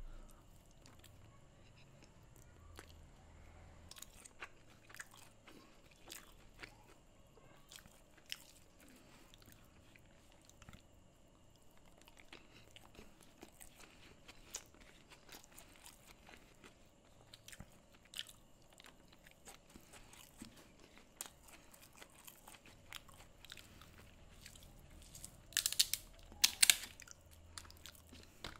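Eating with the fingers from a banana leaf: soft, scattered clicks of rice and curry being mixed by hand and chewed. A few loud crunches come near the end as crisp fried pieces are broken up.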